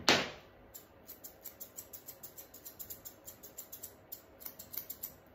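Grooming scissors snipping a puppy's coat in a quick run of short, sharp snips, about five a second, starting about a second in. A single loud short rush of noise comes at the very start.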